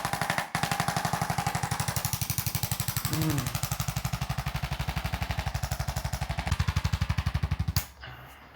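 Percussion massage gun running against the body, a rapid steady hammering pulse of many strokes a second that cuts off about 8 seconds in.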